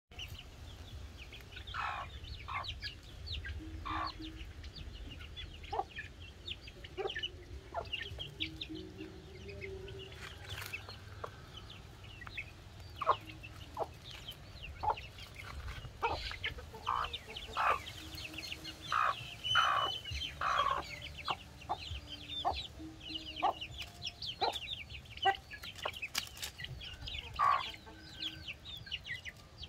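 A hen clucking low over her half-grown chicks, which peep constantly in short, high chirps while they feed on scattered grain; the peeping thickens about halfway through.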